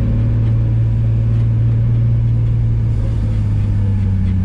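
Nissan 350Z's 3.5-litre V6 engine running at a steady cruise, a constant low drone from inside the car.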